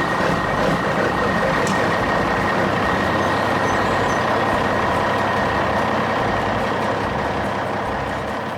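Heavy machine engine running steadily under load, with a steady high-pitched whine over it, easing off near the end.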